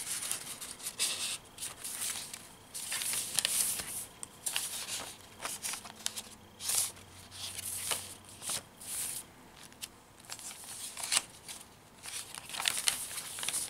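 Pages of a handmade paper junk journal being turned and smoothed flat by hand: paper rustling and crinkling in irregular short bursts.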